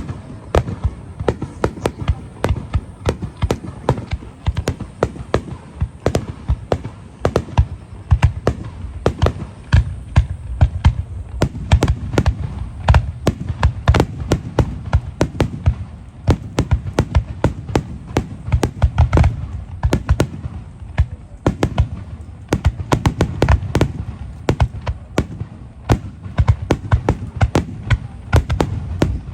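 Fireworks display: a rapid, dense run of bursts and crackling reports, several a second, over a steady low booming rumble.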